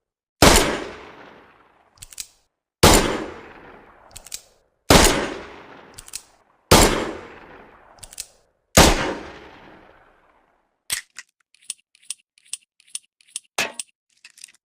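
Smith & Wesson Model 10 heavy-barrel .38 Special revolver firing five single shots about two seconds apart, each with a long echoing tail and a faint click just before it. After the last shot comes a quick run of light metallic clicks and a rattle.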